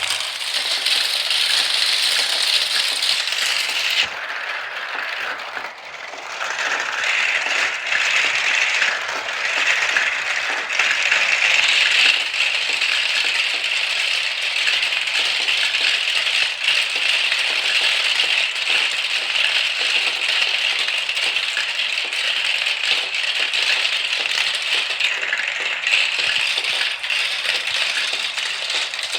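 Many marbles rolling and clattering down a marble run track in a dense, continuous rattle of small clicks, which thins out briefly about four to six seconds in.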